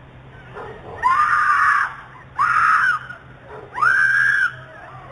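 A woman screaming in distress, three long high screams about a second apart, typical of a victim screaming for help.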